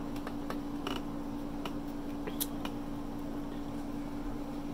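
A person chewing a cheese stick: scattered short wet mouth clicks, about half a dozen, mostly in the first half, over a steady hum.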